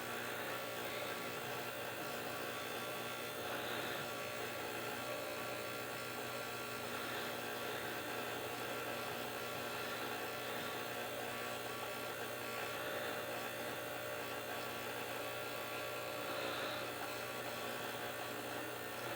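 Steady electrical mains hum with many overtones, with a few faint, brief soft swells now and then over it.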